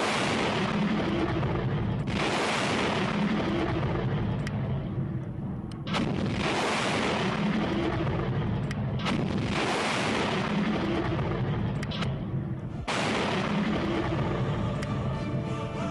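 Launch roar of the Kavoshgar-3 research rocket lifting off. Each blast starts suddenly and fades, and it starts again every three to four seconds.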